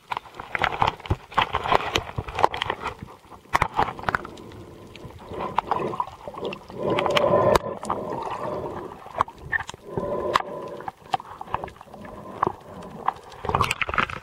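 Muffled underwater sound picked up by a snorkeler's waterproof camera: irregular rushing and gurgling of water with many small clicks and knocks as the camera is swung about. There are longer, louder rushes about seven and ten seconds in.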